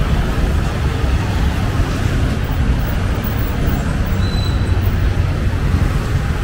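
Steady street traffic noise with faint voices mixed in.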